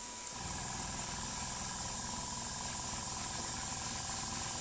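Small airbrush compressor clicking on and running steadily, with a steady hiss of compressed air that starts just before the motor.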